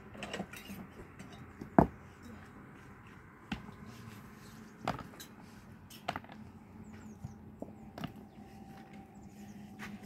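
Scattered knocks and clicks about every one to two seconds, the loudest a sharp knock about two seconds in, over a faint steady hum.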